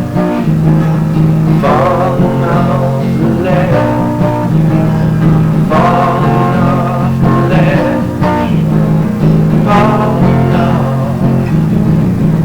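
Alternative rock band music with guitars over a steady bass line.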